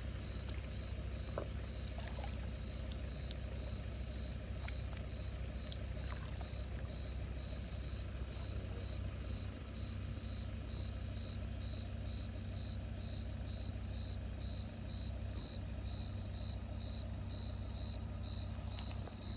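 Vehicle engine idling steadily, a constant low hum. A faint high-pitched chirp repeats about twice a second through most of it.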